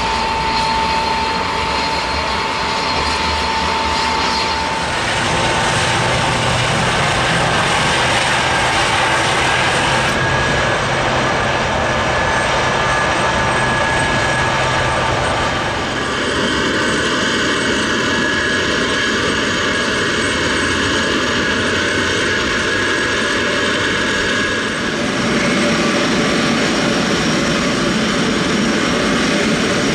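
Turbofan engines of a Boeing C-17A Globemaster III running on the ground: a steady, loud jet rumble and whine with thin high tones. Its tone shifts abruptly a few times.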